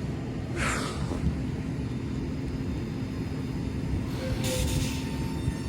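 Two coupled Class 331 electric multiple units pulling out of the station, giving a steady low rumble of running gear, with two short bursts of hiss.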